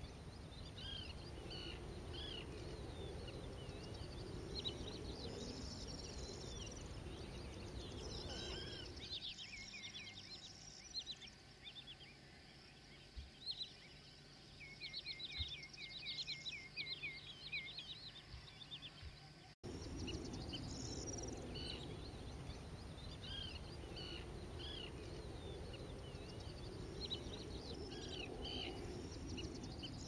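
Wetland birds calling over a steady low background din: many short chirps and whistles from several birds, with a quick run of about a dozen even notes near the middle. The background drops away abruptly about a third of the way in and comes back suddenly about two-thirds in.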